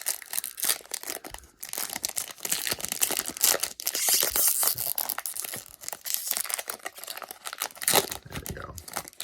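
Wrapper of a baseball card pack being torn open and crinkled: a dense, irregular crackling rustle that stops abruptly at the end.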